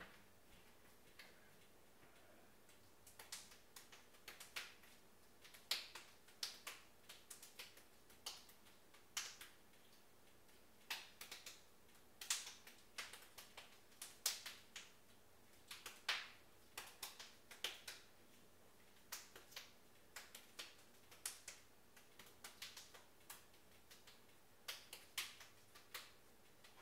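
Two people's hands clapping and slapping together in a hand-clapping routine. The sharp claps come in quick, uneven runs, starting about three seconds in.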